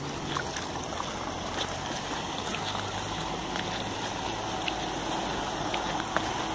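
Fountain water splashing and running steadily, with a faint low hum underneath.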